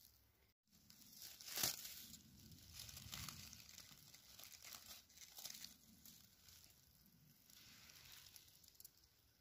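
Faint rustling and crinkling of dry forest-floor litter as a wild mushroom is handled and picked, loudest about one and a half seconds in.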